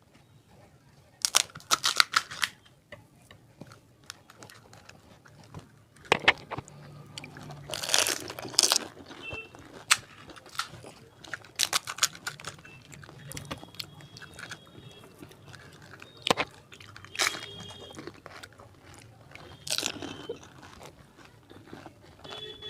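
Crisp fuchka (pani puri) shells crunching as they are bitten and chewed, in short bursts every few seconds.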